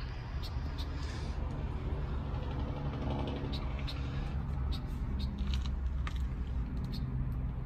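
Steady low engine rumble, with scattered light clicks and taps.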